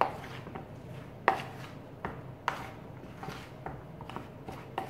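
Metal spoon knocking and scraping against a bowl while turning sliced raw potatoes to coat them in flour, giving irregular clicks about every half second to a second.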